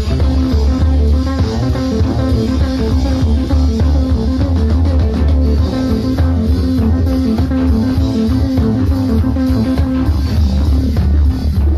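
Jazz-fusion band playing live, with electric bass and drum kit to the fore.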